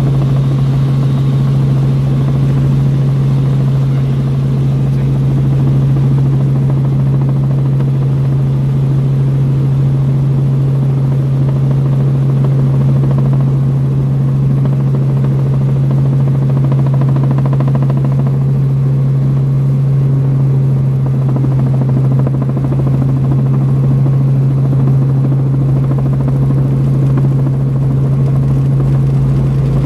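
Helicopter in flight, heard from on board: a loud, steady drone of engine and rotors with a strong constant hum that does not change.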